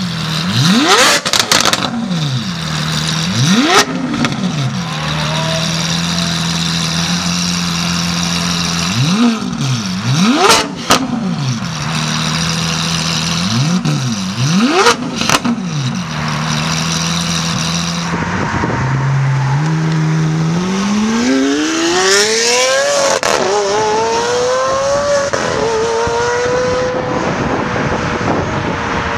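Lamborghini Aventador V12 idling with a series of quick, sharp throttle blips, some singly and some in quick pairs. Then a car accelerating hard, its engine note climbing through the gears with two upshifts before settling into a steady cruise.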